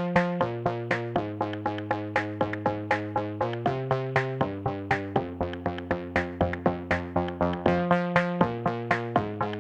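Background electronic music: a steady run of plucked synthesizer notes, about four a second, over chords that change every second or so.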